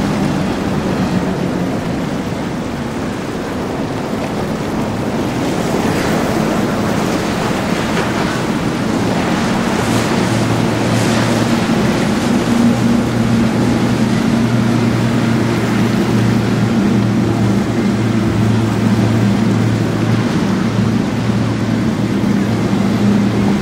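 Motorboat engines running steadily as a center-console boat passes through the inlet, a low drone that grows stronger about ten seconds in, over the wash of waves and wind on the microphone.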